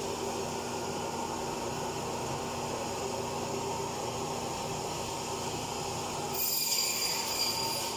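Meat-cutting bandsaw running with a steady hum. About six seconds in, its blade cuts through a piece of lamb and adds a louder, high whine and hiss for about a second and a half.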